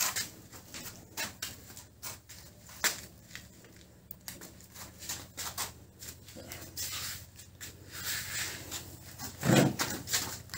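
Fine nylon fishing net rustling, with scattered light clicks and scrapes, as it is pulled through the hands and freed where it has snagged. A short, louder sound comes near the end.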